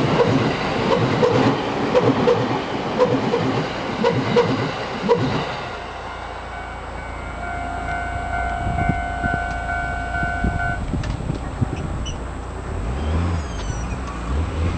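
Train passing, its wheels clattering rhythmically over rail joints until it dies away about five seconds in. Then a steady tone holds for about four seconds and cuts off suddenly.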